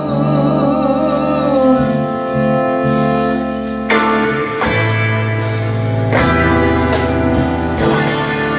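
Live band playing with electric guitar, bass guitar, drums and keyboard, holding long sustained chords; a wavering high note sounds over them in the first second or so, and the chord changes about four seconds in and again about two seconds later.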